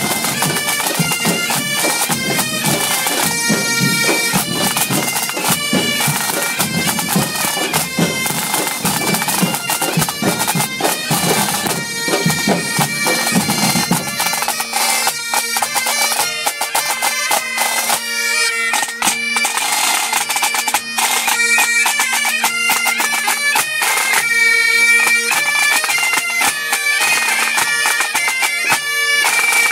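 A Breton bagad playing: bagpipes with a steady drone under the melody, over drums. About halfway through the deep drums drop out, leaving the pipes' drone and tune over lighter drumming.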